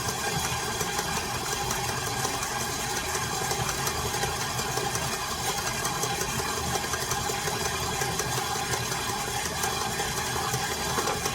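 Electric mixer running steadily, beating chocolate chip cookie dough.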